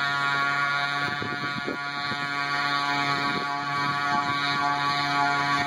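6 HP liquid-cooled Polini two-stroke pocket-bike race engine pushing a kayak along under power, buzzing steadily at constant revs.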